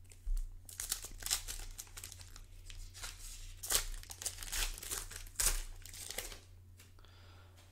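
Foil wrapper of a Panini Prizm retail basketball card pack being torn open and crinkled by hand: a series of sharp crinkles and rips, loudest around the middle, dying away about a second before the end.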